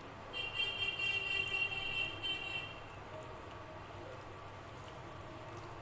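A steady high-pitched tone with several overtones, held for about two seconds and starting shortly after the start, over the faint soft squelch of rice and dal being mixed by hand.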